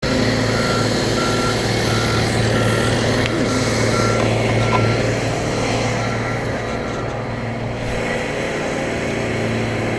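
A vehicle's reversing alarm beeping at an even pace, about one and a half beeps a second, over the steady run of its engine. The beeps stop about seven seconds in.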